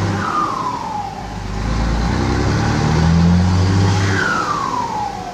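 Ford F-250 six-cylinder engine with a modified exhaust pulling with a deep rumble, easing off just after the start and pulling again about two seconds in. Each time the throttle closes, a falling whistle follows: the exhaust 'singing', which the owners say grows as it fills with carbon.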